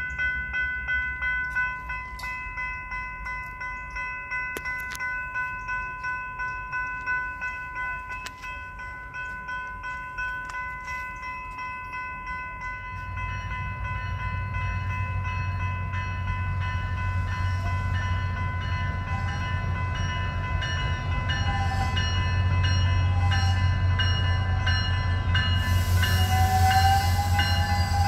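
Railroad crossing bell ringing steadily in even strikes while a SunRail commuter train approaches. From about halfway a diesel locomotive's low rumble builds, and near the end wheel noise and short squeals come in as the train arrives.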